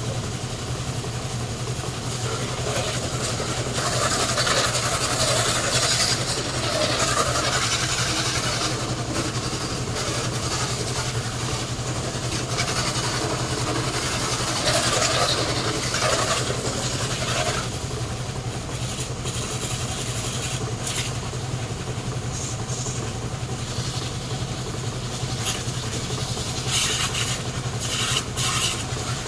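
An engine running steadily with a low hum, while water spraying from a hose onto a van hisses in several spells, a few seconds each.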